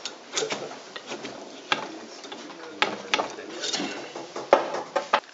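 Irregular metallic clicks, knocks and scrapes as a rammer is worked in the barrel of a small model cannon during loading, with one louder knock about four and a half seconds in.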